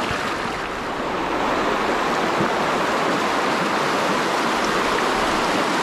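Creek water flowing and rushing steadily.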